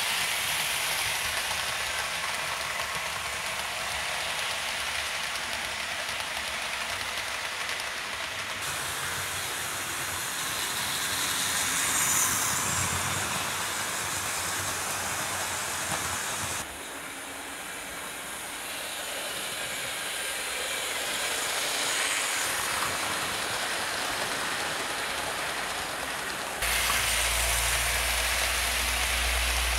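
Wren 00 gauge unrebuilt West Country class model locomotive and its coaches running on the track: a steady rushing noise of the motor and wheels. The sound changes abruptly about three times, with a low hum added near the end.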